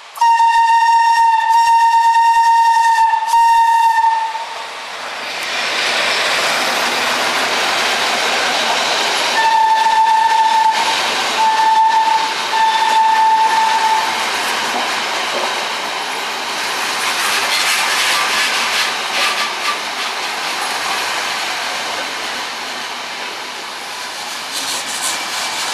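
Electric locomotive's horn sounding a long blast of about four seconds, then three shorter blasts about ten seconds in. Under and after the horn is the running noise and clickety-clack of passenger coaches rolling past close by.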